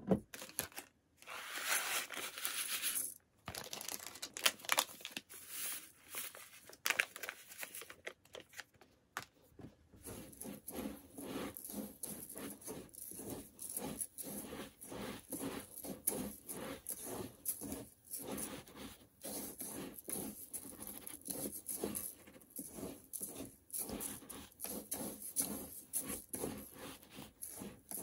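Hands rubbing and mixing dry brown-rice koji with coarse salt in a stainless steel pot: a continuous dry, grainy rustling and crackling of the grains. There is a louder hiss in the first few seconds.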